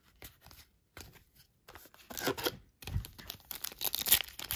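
Cards handled with a few light clicks, then, from about two seconds in, a trading-card pack wrapper being torn open and crinkled, with a soft thump partway through.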